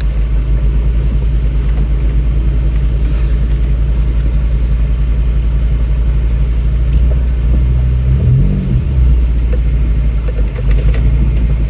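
Ford Bronco's engine running low and steady at crawling pace off-road, rising briefly in revs about eight seconds in.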